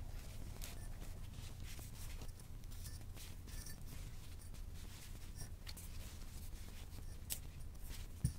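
Soft rustling and scattered light clicks as hands fold fabric points and push pins into a foam disc, over a low steady hum.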